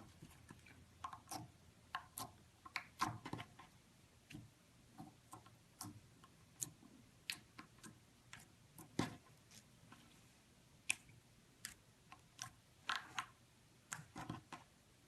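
Slime being squished and poked by hand: a faint string of small, irregular clicks and pops, a few of them louder.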